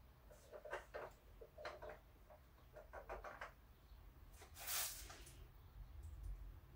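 Faint small clicks and taps of resin statue parts being handled and fitted together, with one short rustle a little past the middle.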